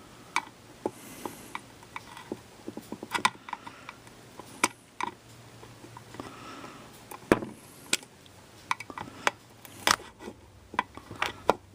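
Irregular sharp clicks and taps with a few soft scrapes: a metal pick working hardened epoxy and a stub of wire out of a hole in a plastic speaker box.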